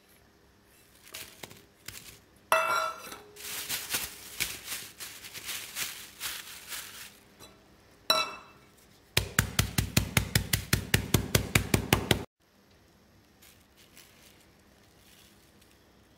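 Wheat biscuits being crushed in a plastic freezer bag: a metal bowl clinks as they are tipped in, then come irregular knocks and plastic rustling. About nine seconds in, a fast, even run of blows, about five or six a second for some three seconds, pounds the biscuits to crumbs.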